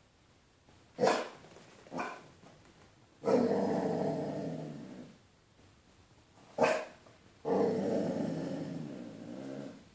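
Basset hound barking at his own reflection in the window glass: two short barks, then a long drawn-out call, another bark and a second long drawn-out call.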